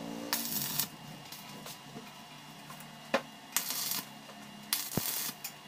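Stick (arc) welder crackling in three short bursts of about half a second each as short welds are laid along the water tank's end seam, with a couple of sharp ticks between the bursts.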